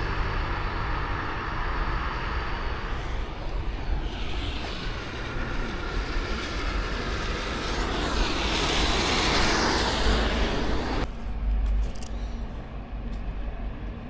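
A vehicle passing: a rushing noise that swells to its loudest past the middle and then cuts off suddenly, leaving quieter street background with a few faint clicks.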